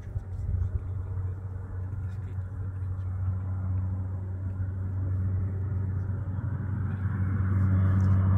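Propeller engine of a firefighting water-bomber droning steadily as it comes in low over the lake to scoop water, growing louder toward the end.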